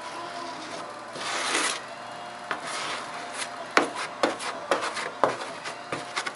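A hand spreader scraping green body filler over the bare metal of a car's trunk lid. There is one long scrape about a second in, then a run of short, quick strokes with sharp edges through the second half.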